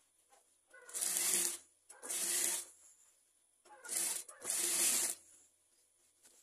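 Industrial sewing machine stitching in four short runs, each under a second, starting and stopping sharply, as the collar is sewn a little at a time.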